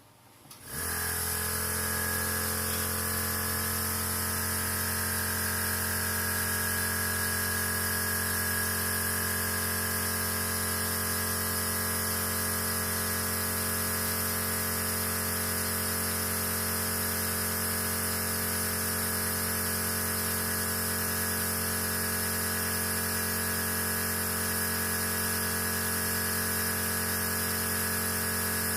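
Hot air rework station switched on about a second in, its fan and nozzle blowing with a steady hiss and hum, heating a phone flex cable connector from below to melt the solder and let it self-align.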